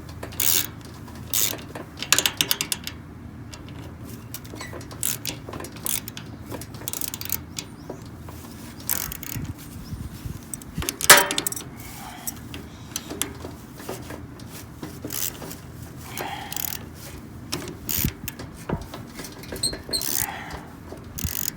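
Adjustable wrench working a bolt on a lawn sweeper's brush, giving irregular metallic clicks and clinks as the bolt is tightened, with one louder clank about halfway through.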